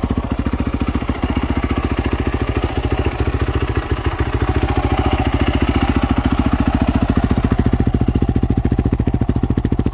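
Fuel-injected single-cylinder four-stroke engine of a 2010 Yamaha YZ450F dirt bike idling steadily, with a fast, even beat through the exhaust.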